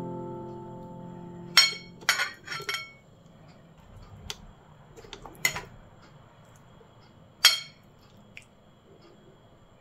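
A metal fork and knife clinking against a plate as food is cut and scooped: a quick cluster of sharp clinks a second and a half to three seconds in, then single clinks about five and a half and seven and a half seconds in, with faint taps between. A piano chord fades out during the first second or so.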